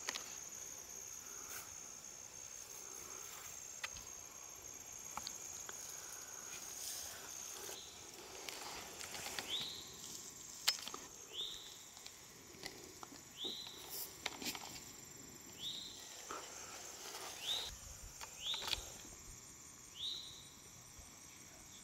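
Faint, steady high-pitched insect buzz. Over the second half a short high chirp repeats about every second and a half, with a few light ticks and rustles.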